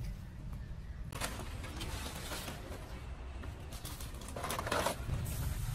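Rustling and crackling of stiff plant leaves being handled, in two bouts, the second shorter, over a low steady rumble.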